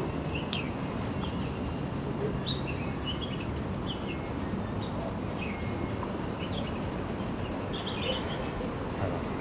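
Small birds chirping in short, scattered calls over a steady low hum of street noise, with one sharp click about half a second in.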